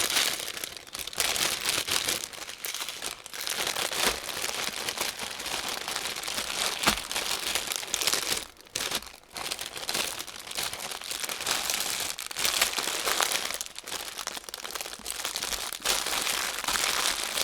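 Small plastic bags of diamond-painting drills crinkling and rustling as they are handled and packed back into a larger bag, with a couple of brief pauses about halfway through.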